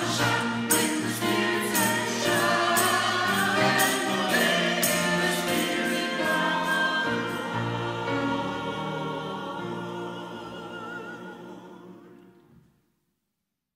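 Small mixed vocal ensemble singing a sacred choral piece in sustained chords, with piano. A light jingling percussion beat runs through the first half, then the music fades out and ends about twelve seconds in.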